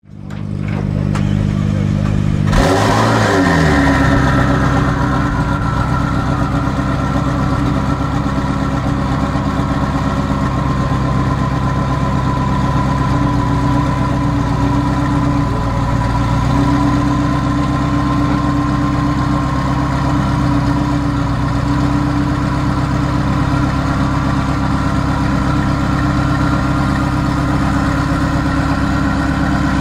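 The tuned twin-turbo 3.8-litre V8 of a McLaren 650S, running loud. About two and a half seconds in the revs rise sharply, then fall back over the next few seconds into a steady idle.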